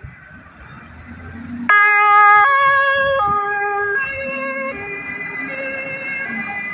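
German two-tone fire-engine siren (Martinshorn) switching on about a second and a half in, alternating between two notes roughly every three-quarters of a second; it is the loudest thing. Before it, truck engines run as the fire engines pull away.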